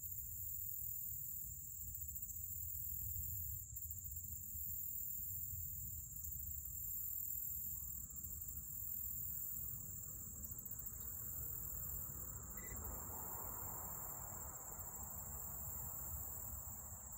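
Steady high-pitched insect chorus over a continuous low rumble, with a faint hiss swelling in the second half.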